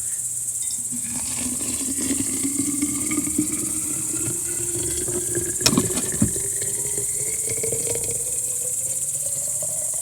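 Boiling water poured from a kettle into a cup, the pouring sound rising steadily in pitch as the cup fills, with a couple of light clinks about halfway through.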